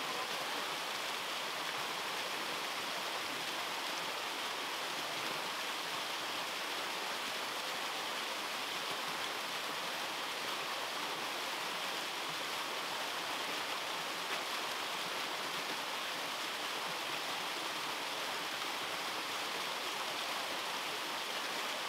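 Small waterfall pouring over rocks: a steady, even rush of falling water.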